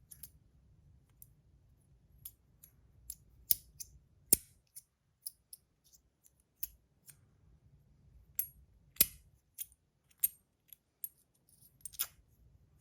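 Brass magnetic micro slider fidget being slid back and forth, its brass pieces snapping into place against the magnets in sharp metallic clicks. The clicks come at an irregular pace, the loudest about 4 and 9 seconds in.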